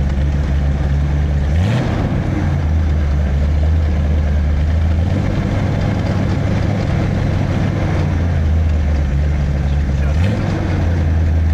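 1968 Corvette L68 427 cu in big-block V8 idling with a lumpy, steady note through its exhaust. The throttle is blipped briefly twice, about two seconds in and again near the end.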